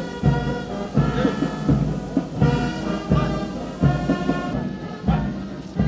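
Military band playing a march: brass holding pitched notes over a steady drum beat.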